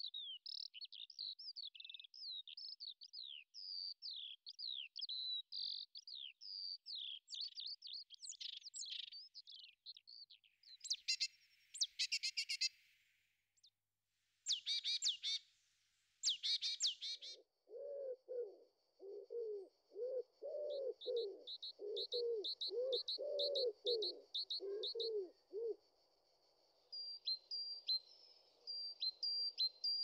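Spring dawn chorus of several wild birds singing. A fast run of high chirping notes comes first, then dry rattling calls, then a series of low repeated calls under a high note repeated several times a second.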